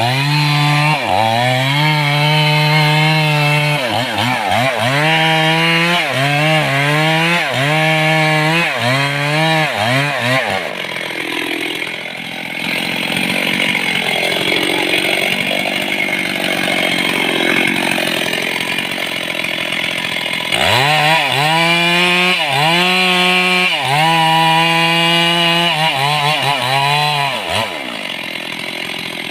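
Stihl chainsaw running at high speed with its pitch repeatedly dipping and recovering, as when cutting into mahogany wood. It eases to lower, slower running for about ten seconds in the middle, then goes back to the high-speed dipping pattern, and drops back near the end.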